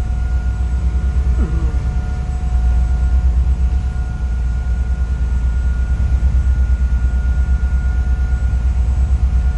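Sightseeing boat's engine running steadily under way, a deep drone with a steady whine above it.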